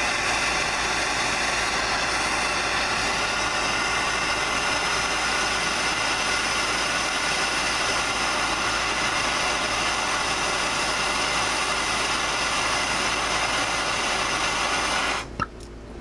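MAPP gas torch flame hissing steadily, with faint steady tones through it, as it plays on a die-cast lock body. It cuts off suddenly near the end as the torch is shut off.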